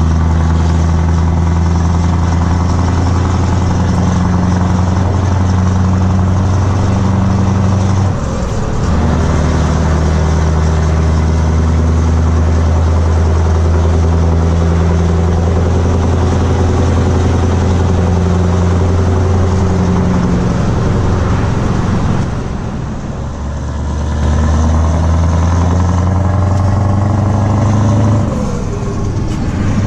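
Scania R500's V8 diesel with open, straight-piped exhausts running under load, heard from inside the cab as a deep, steady drone. It breaks briefly about eight seconds in, then eases off and changes pitch about two-thirds of the way through and again near the end.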